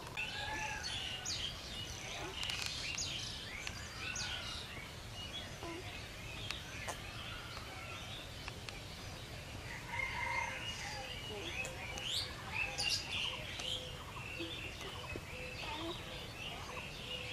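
Many birds chirping and calling in the trees, a dense chorus of short, high, quick calls.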